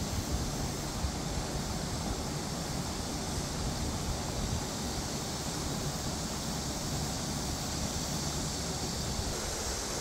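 Steady rush of a mountain stream flowing over rocks, with wind rumbling on the microphone.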